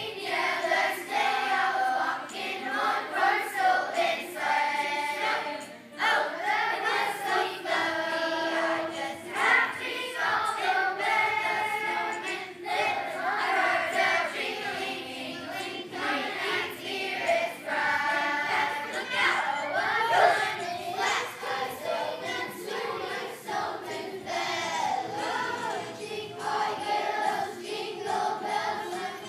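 A children's choir singing together, with a short break between phrases about six seconds in.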